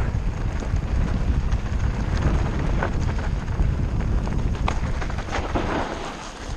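Mountain bike descending a dry dirt trail: wind buffeting the camera microphone over the steady rumble of the tyres, with scattered sharp clicks and rattles. The rumble eases off near the end.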